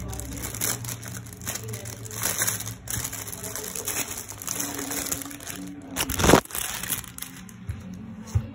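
Clear plastic poly bag crinkling and rustling as the zippered soldering-kit case is handled and pulled out of it, with one sharp, loud crackle about six seconds in.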